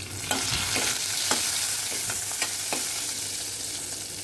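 Green chilli, cumin and garlic sizzling in hot oil in a steel pressure cooker as the tempering (phodni) is fried. A steel ladle stirring the pan clinks against it about six times in the first three seconds.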